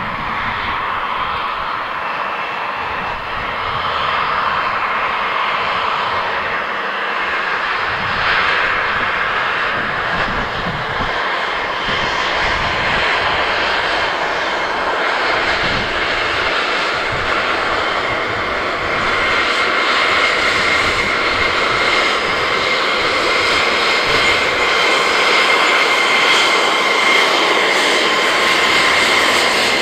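Embraer Legacy 600 business jet taxiing, its two rear-mounted Rolls-Royce AE 3007 turbofans running with a steady whine that grows slowly louder as the jet comes closer. A high steady tone in the whine stands out more in the second half.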